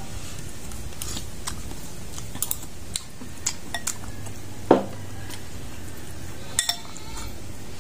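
Metal spoon clinking and scraping against a glass bowl while eating: a scattering of short, light clinks, with one louder knock just past halfway, over a steady low hum.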